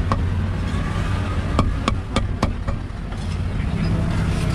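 Meat cleaver chopping roast pork on a round wooden chopping block: one sharp knock at the start, then about five quick knocks in a row in the middle, over a steady low rumble.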